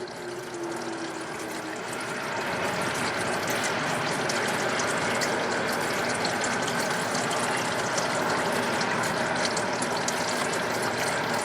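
A distant outdoor warning siren winding down, its pitch falling until it fades out about two seconds in, under a steady rushing noise that grows louder and then holds.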